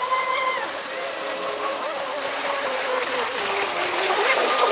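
Electric RC speedboats running on brushless motors, a whine that dips and rises in pitch with the throttle over a steady hiss of water. A second, higher whine joins about four seconds in.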